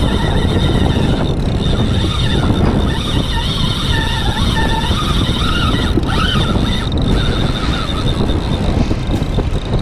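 Boat engine running under way, a steady low rumble, with wind buffeting the microphone.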